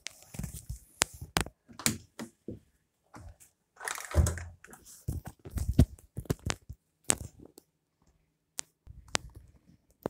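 Handling noise of a phone being moved around in the hand: irregular knocks, rubbing and crackling on the microphone, with a longer scrape about four seconds in.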